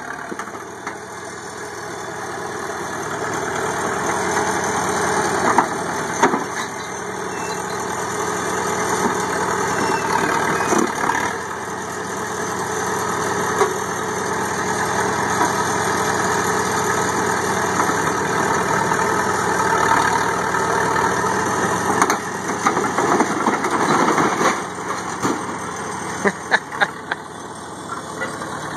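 Caterpillar 933 crawler loader's engine running as the machine climbs over and crushes a car under its tracks, with sharp cracks and crunches of the car's metal and glass, most of them in the last few seconds.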